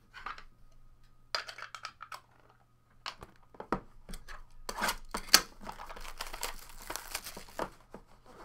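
Trading-card packs and their cardboard box being handled: a few light clicks and taps, then steady crinkling and rustling of the pack wrappers from about halfway in, with one sharp click.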